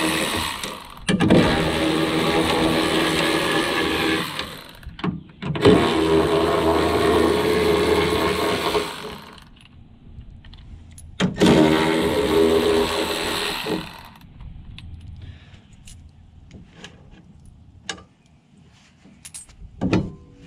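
Cordless electric ratchet running in three bursts of a few seconds each, backing out bolts; afterwards light clicks and knocks as the loosened hardware is handled and lifted off.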